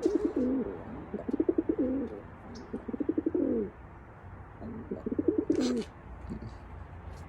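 Wild pigeon cooing close up: four coo phrases of about a second each, every one a quick wavering run of pulses, with short pauses between.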